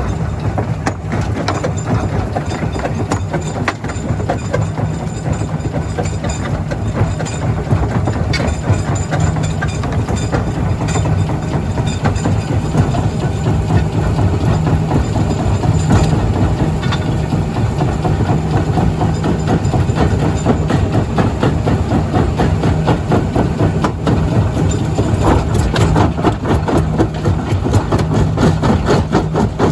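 Heavy diesel machinery running steadily, with a low engine drone under continual clatter and knocks that come thicker near the end.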